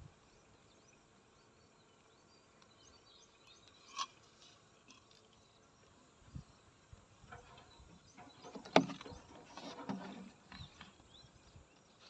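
Clay toddy pot and its rope being handled against a palmyra palm's fruit bunch: quiet rustling and scraping with a few knocks, the loudest a single sharp knock about two-thirds of the way through, over faint chirping.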